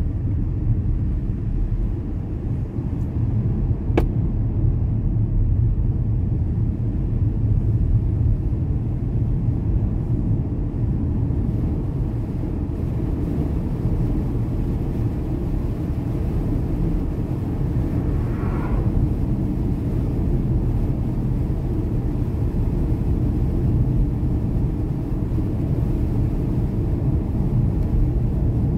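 Steady low rumble of road and wind noise inside a moving car's cabin, with a single sharp click about four seconds in.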